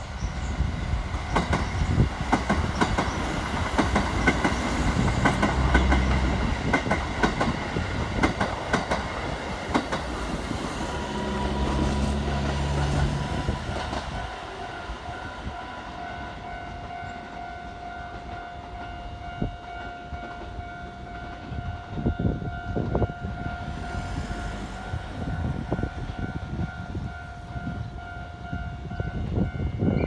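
A Keikyu 1000-series electric train passing close by, its wheels clattering over the rail joints, fading about halfway through. A level crossing warning bell keeps ringing under it and on after the train has gone, the crossing still closed for the next train.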